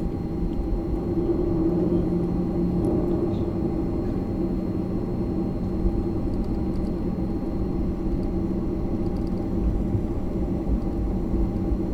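Jet airliner engines heard from inside the cabin: a steady drone with a low rumble and an even hum, holding level without rising or falling.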